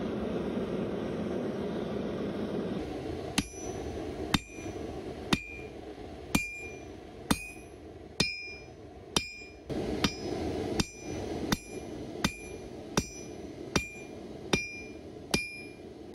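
A gas forge burner runs with a steady rushing noise for about three seconds. Then a hand hammer strikes red-hot bearing steel on an anvil, about one blow a second and a little quicker in the second half, each blow with a bright metallic ring.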